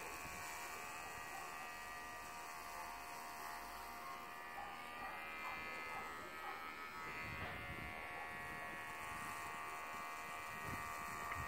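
Electric hair clippers buzzing steadily while being run over the head to shave the hair off.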